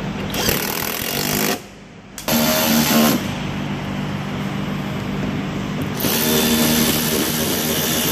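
Cordless ratchet running in short runs as it drives plastic fender-liner screws home. There is a brief stop about a second and a half in, then longer runs.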